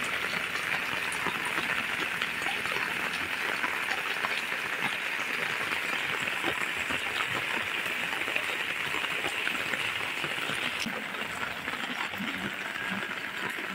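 Heavy rain falling steadily: a dense, even hiss of drops on tiled roofs and wet pavement.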